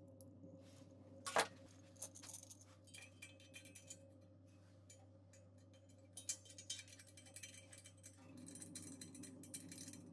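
Metal clicks and clinks as a brass gas regulator is handled and fitted onto a propane cylinder's valve, the sharpest clink about a second and a half in, over a faint steady hum.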